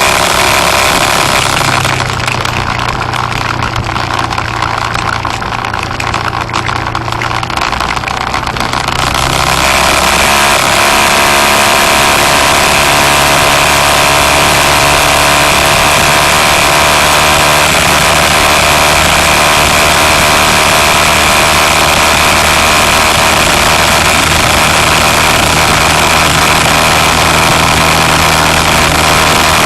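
Car engine and road noise while driving: a steady running sound that eases off for several seconds, then grows louder again about ten seconds in and holds steady.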